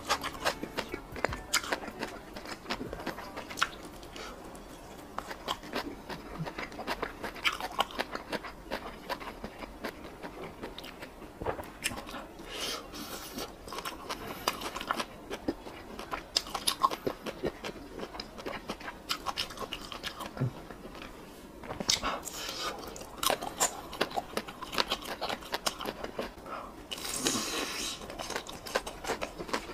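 Close-miked eating of crumb-coated fried skewers: biting and chewing with irregular crunches and small crackles.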